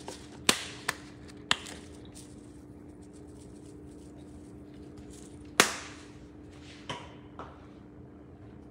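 A spice jar being handled over a stainless steel mixing bowl while dried herbs are shaken out: several sharp clicks and knocks, the loudest about five and a half seconds in. A faint steady hum runs underneath.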